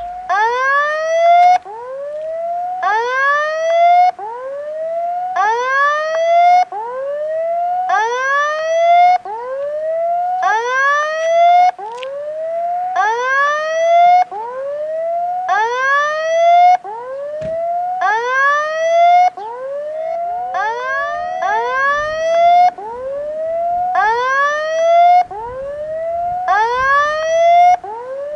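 Level crossing's electronic warning sounder, a rising whooping tone repeated over and over, under a second apart, with a brighter, louder surge about every two and a half seconds. It signals that the crossing is active and a train is approaching.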